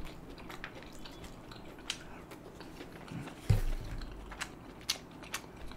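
Close-miked chewing of a mouthful of takeaway food, with many small wet mouth clicks. A single low thump comes about three and a half seconds in.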